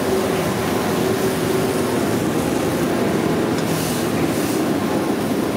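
Steady, loud rumbling roar of a commercial kitchen's equipment, unbroken throughout, with a faint hum underneath.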